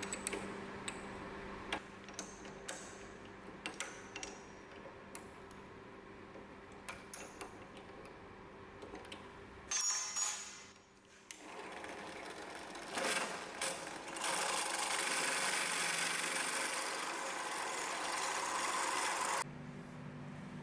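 Workshop handling sounds, scattered clicks and knocks of tools and metal parts, then a power drill runs steadily for about five seconds before cutting off, boring holes for the propeller shaft flange.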